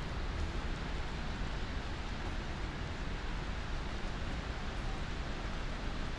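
Steady hiss of rain falling on wet pavement, over a low, steady rumble of city noise.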